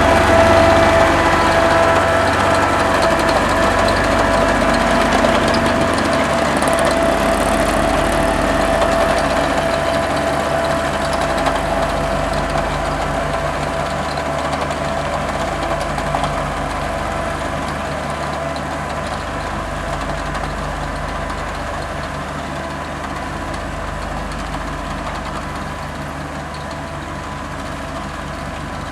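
Road roller's diesel engine running steadily, growing gradually fainter.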